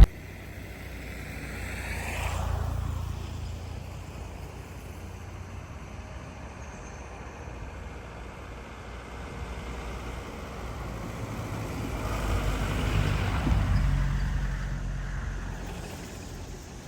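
Motor vehicles passing on a road: a low engine and tyre rumble that rises and fades about two seconds in, then again more slowly around twelve to fourteen seconds in.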